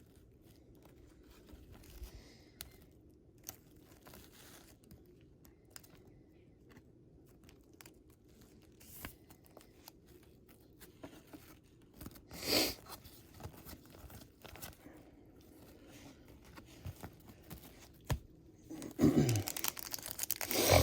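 Trading cards being handled and a foil card pack being torn open: faint scattered clicks and rustles of cards, a short tear about twelve seconds in, and louder crinkling of the wrapper near the end.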